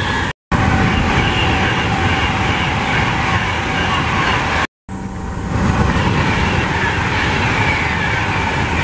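Express passenger trains passing at speed: a loud, steady noise of wheels on rail and rushing air. It is broken twice by a sudden short silence where the footage is cut, just under half a second in and again near five seconds.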